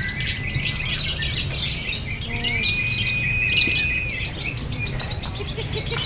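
Fischer's lovebird chattering in a fast, unbroken run of high chirps. A held high whistle-like tone sounds in the middle for about a second and a half.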